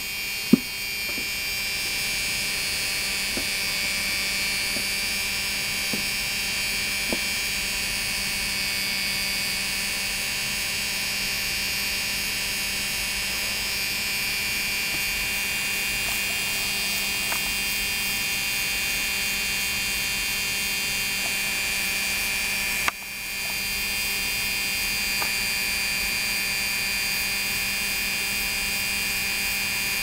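Optimized PFAFF 332 sewing machine electric motor running unloaded at full speed with its electronic foot controller held all the way down: a steady hum and whine that holds even, with no fluttering or rise and fall in speed.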